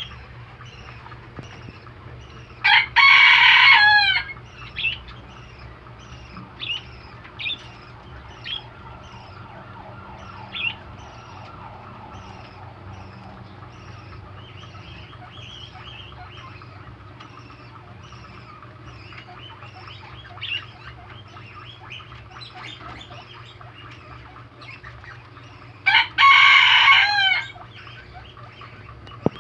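Two loud, long bird calls, one early and one near the end, each falling in pitch at its close, over faint short chirps repeating about twice a second and a steady low hum.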